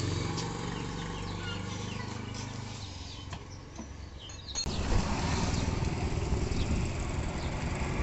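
A motorcycle engine idling steadily, with a few bird chirps over it. About four and a half seconds in, this cuts abruptly to a louder, even rushing noise.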